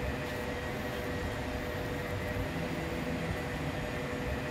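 Steady hum and hiss of shop machinery running, like a cooling fan, with faint constant tones and no change in level.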